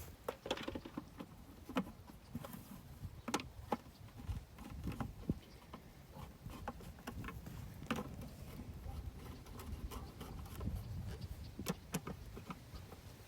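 Scattered metallic clicks and light knocks as a nut is put back on and snugged up with hand tools, over low rumbling wind buffeting the microphone.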